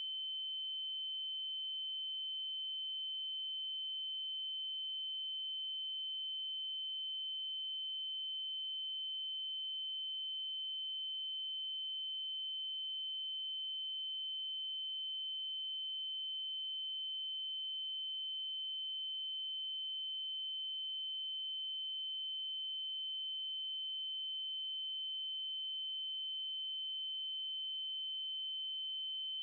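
Steady, unbroken 3072 Hz triangle-wave test tone: one constant high-pitched electronic tone with faint higher overtones.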